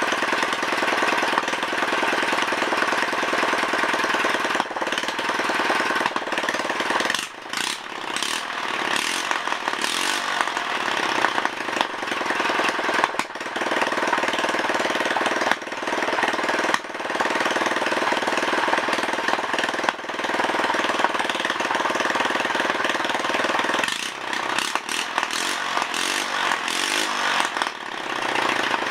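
Rebuilt 6.5 hp clone single-cylinder engine running loud with no exhaust fitted, on its first test run after the rebuild. Its speed sags and picks up again about a quarter of the way in and once more near the end.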